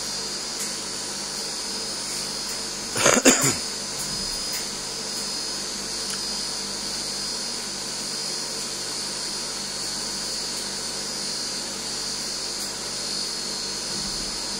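Handmade cotton candy machine running steadily, its motor and spinning head giving an even high whirring hiss. A short loud burst like a cough comes about three seconds in.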